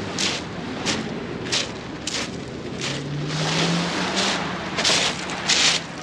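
Footsteps crunching on a pebble beach at a steady walking pace, about three steps every two seconds, the loose stones grinding underfoot.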